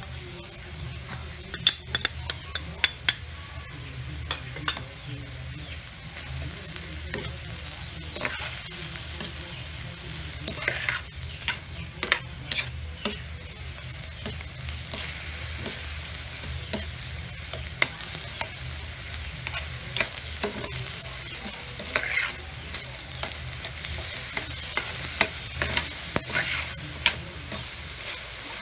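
Ground beef sizzling in a wok as it browns, stirred with a large metal spoon that scrapes and clicks against the pan again and again.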